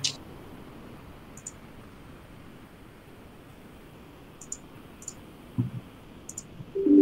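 Computer mouse clicking: one louder click at the start, then single sharp clicks every second or so over a faint hiss. There is a dull low thump about five and a half seconds in, and a short low two-note tone starts just before the end.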